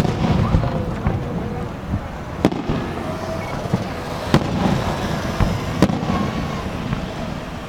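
Aerial fireworks bursting: a sharp bang right at the start, then loud reports about two and a half, four and a half and six seconds in, with smaller pops and a continuous low rumble and crackle between them.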